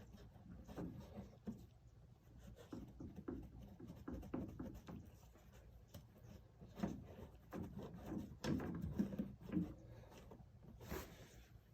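Faint, irregular clicks and scrapes of a 19mm open-end wrench working a McLaren 650S front hydraulic suspension accumulator loose from its fitting, with hands rubbing against parts. The accumulator comes off with no pop of released pressure.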